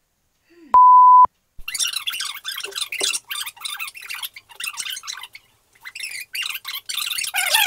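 A single electronic beep, one steady tone about half a second long, sounds as the TV remote is pressed. It is followed by rapid, high-pitched, squeaky chatter that comes in quick broken bursts with short pauses.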